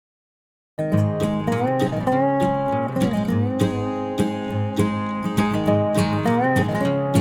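Total silence for the first moment, then acoustic guitar music in a country style comes in abruptly, with plucked and strummed notes and some sliding pitches.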